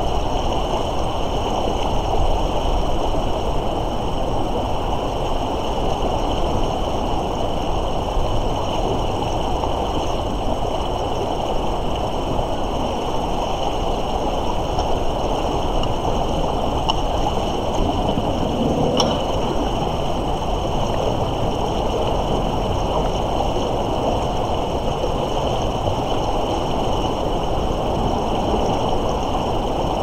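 Fast-flowing river swollen with spring thaw, its water rushing with a steady, even noise. A single faint click comes about two-thirds of the way through.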